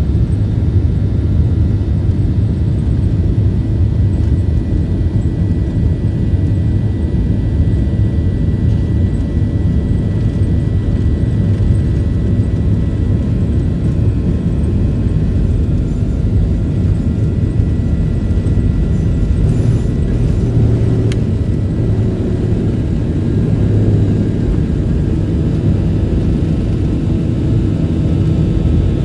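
Steady low rumble of a Boeing 737-900 heard from inside the cabin as the jet rolls along the ground, its CFM56 engines at low thrust, with a faint steady high whine over it.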